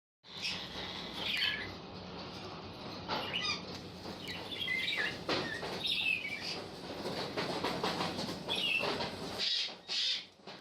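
Caged birds calling and chirping in short bursts, mixed with repeated rustling and wing flapping, over a faint steady low hum.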